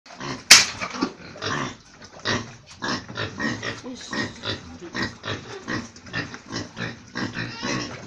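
A single sharp crack about half a second in, the shot of an FX Impact .177 PCP air rifle, followed by a pig crying out in rapid, repeated grunts and squeals, one or two calls a second.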